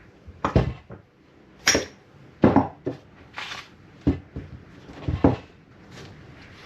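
Metal clanks and knocks from a fork seal driver and the motorcycle fork tube, about six irregular strikes, as the new fork oil seal is worked down into the fork leg.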